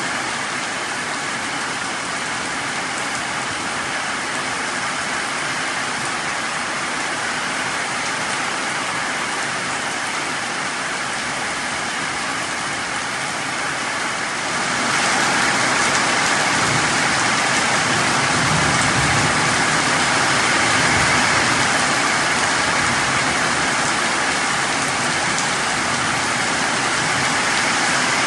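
Heavy tropical rain pouring steadily onto bare ground and tree leaves, a dense even hiss that grows louder about halfway through. A low rumble joins briefly a few seconds later.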